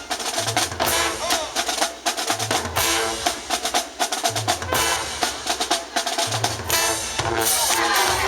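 High school marching band drumline playing a fast percussion passage: rapid snare and rim hits, with deep bass drum beats about every two seconds.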